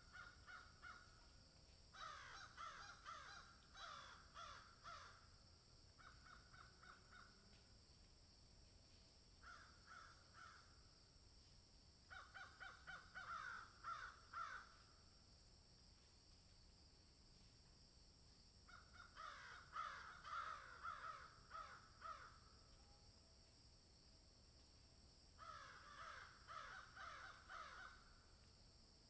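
Crows and magpies calling in about seven bouts of harsh, rapidly repeated calls, each bout lasting one to three seconds with short gaps between.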